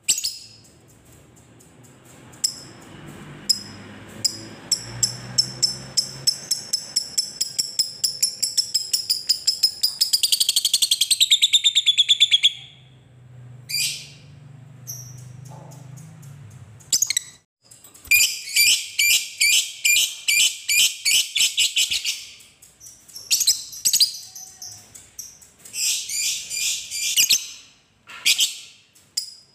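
Lovebird singing its long, rapid chattering trill ("ngekek"): shrill repeated notes speed up into a fast continuous trill for about ten seconds and end in a falling run. The trill then comes back in several shorter bursts. A faint low hum runs under the first half.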